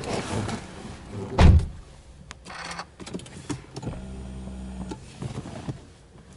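A car door shuts with a heavy thud about one and a half seconds in, followed by small knocks and rustling. Then, a little later, a small electric motor whirs steadily for about two seconds as the ignition is switched on, before the engine is started.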